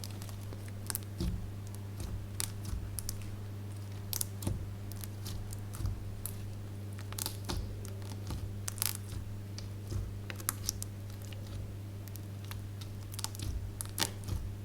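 Slime being worked by hand, giving irregular crisp clicks and crackles, over a steady low hum.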